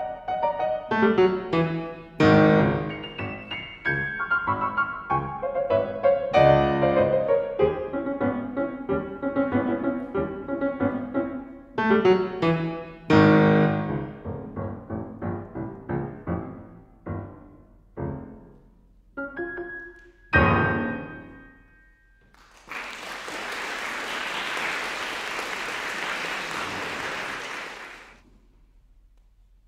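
Shigeru Kawai grand piano played solo, the piece ending about twenty seconds in on a final chord that rings out. Applause follows for about five seconds, then stops.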